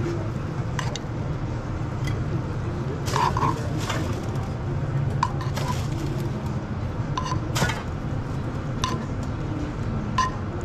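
Metal spoon clinking and scraping against a frying pan and a ceramic bowl while chicken and teriyaki sauce are spooned over rice. The light clinks come irregularly, about one a second, some with a short ring, over a steady low hum.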